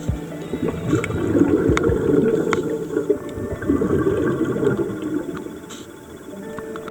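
Scuba diver's exhaled bubbles gurgling and rushing past an underwater camera, swelling in two long breaths.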